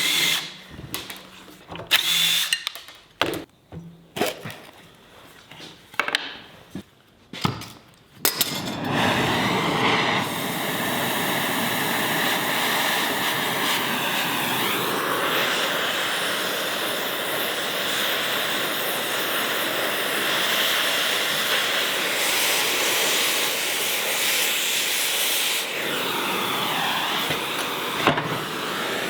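Knocks and clatter of hand work on a steel trailer landing-gear jack. About eight seconds in, a cutting torch starts up with a steady loud hiss as it cuts the extra brackets off the jack. The hiss eases briefly near the end.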